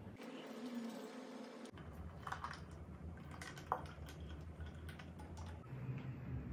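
Scattered light clicks and taps of hands handling orange slices and glassware, with one sharper click a little past halfway.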